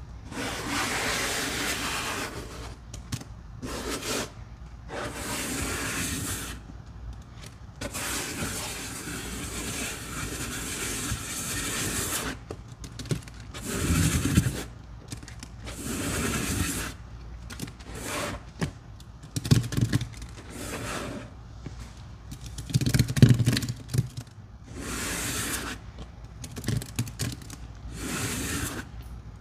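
Sponges loaded with a foamy soap and baking-soda paste being squeezed and worked by hand: a run of wet, crackling squelches of varying length, with a few heavier thumps in the middle and later on.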